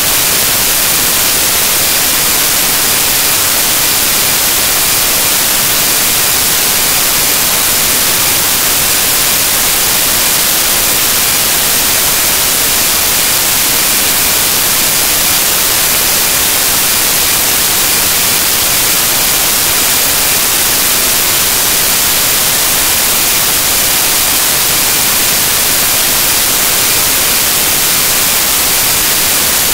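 Loud, steady static hiss, brightest in the treble and unchanging throughout.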